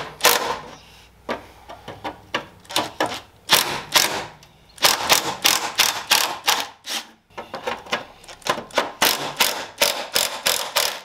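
Cordless impact driver hammering in several bursts with short pauses, rattling out a bolt from a car's rear body panel.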